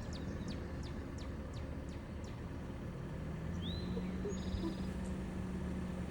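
Songbirds chirping, with a series of quick high chirps, one rising whistled note and a short buzzy trill, over a steady low rumble. A steady low hum joins about halfway through.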